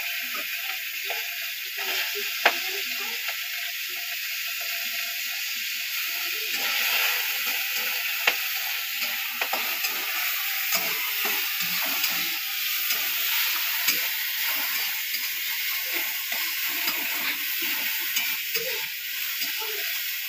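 Chopped potatoes frying in hot oil in a kadai on a gas stove, a steady sizzle, with the clicks and scrapes of a spatula stirring them against the pan every few seconds.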